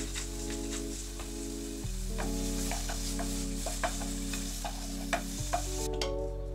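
Meat sizzling as it fries in a pan, stirred with a wooden spatula that clicks and scrapes irregularly against the pan; the sizzle cuts off suddenly near the end. Soft background music with held chords plays underneath.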